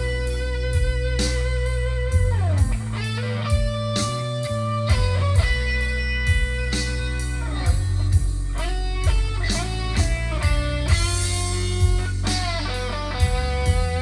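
Fender Stratocaster electric guitar playing a slow blues lead in B: sustained single notes, several of them bending or sliding down in pitch. It plays over a backing track with a low bass line and a steady beat.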